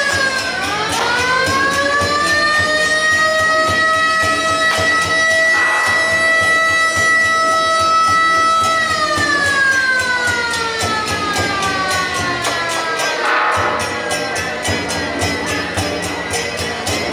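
Air-raid siren wailing. Its tone climbs to a steady pitch in the first couple of seconds, holds for several seconds, then slowly falls away.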